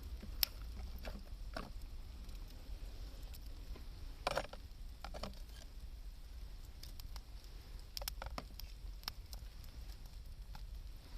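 Wood campfire crackling, with scattered sharp pops and a louder crackle about four seconds in, over a steady low rumble.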